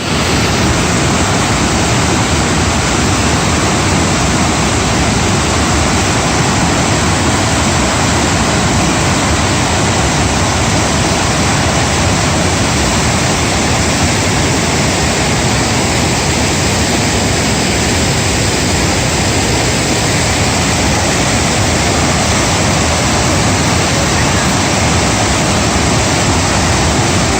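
Loud, steady rush of fast-flowing floodwater, with no change through the stretch.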